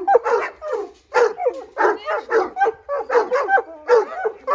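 Irish wolfhounds howling and barking in excitement at the prospect of a walk: a continuous run of short calls, about three a second, each rising and falling in pitch.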